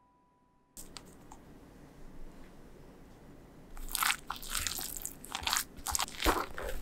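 Silicone spatula folding whipped egg-white meringue into dark chocolate batter in a glass bowl: irregular wet squishing and scraping strokes, growing louder and busier from about four seconds in.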